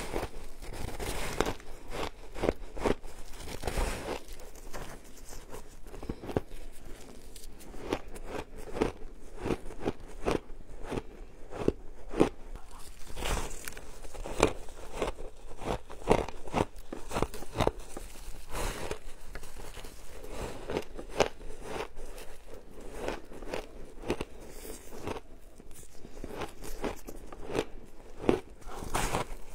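Biting and chewing of packed shaved ice: a dense, irregular run of crisp crunches as chunks of ice are bitten off and crushed between the teeth.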